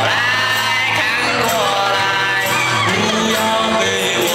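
Loud Mandarin pop song with a sung lead vocal and a steady beat, played over a stage sound system.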